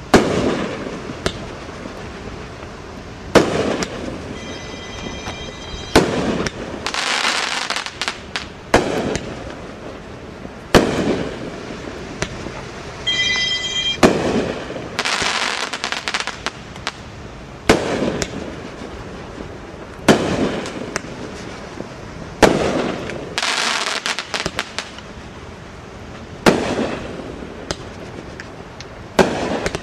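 A 15-shot, 200-gram 'Wild One' firework cake firing one shot at a time, a sharp bang every few seconds. Each bang is followed by a second or two of crackling and hissing as the palm, crackle and willow effects burst and fall.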